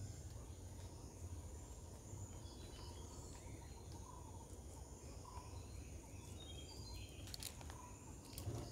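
Garden ambience: a steady high insect drone over a low rumble, with scattered faint bird chirps, and a few short clicks about seven and eight and a half seconds in.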